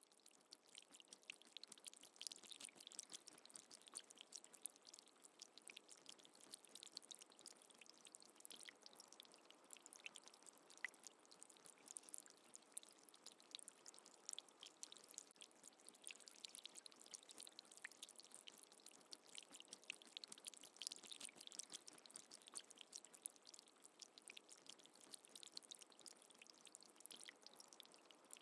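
Faint water trickling and dripping: a steady, dense patter of small drips.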